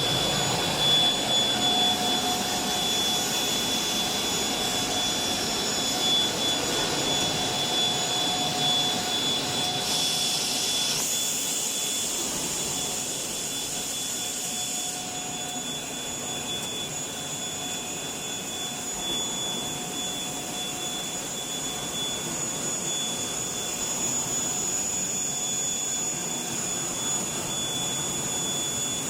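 Wood-plastic composite (WPC) profile extrusion line running: a steady machine noise with high, steady whining tones. A stronger hiss joins in for about five seconds midway.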